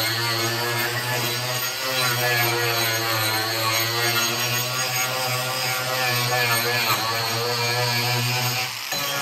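Ryobi angle grinder fitted with an Arbortech carving wheel, running steadily as it carves into the edge of a walnut slab. Its motor pitch wavers slightly as the wheel bites into the wood. The sound dips briefly near the end.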